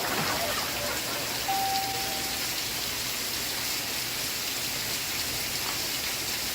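Steady rain falling, an even hiss. A short steady tone sounds about a second and a half in.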